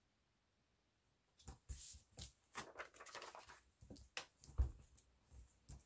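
Paper rustling and handling as the pages of a small children's picture book are turned and pressed flat by hand, starting about a second and a half in, with a dull thump on the table a little past the middle.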